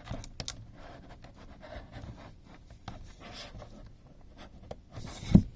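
Hands handling a plastic electronic device: light scratchy rubbing and small clicks as it is turned over, with one louder knock about five seconds in.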